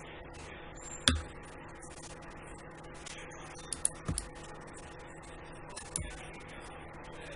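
A handful of separate computer mouse clicks, the loudest about a second in, over a faint steady hum.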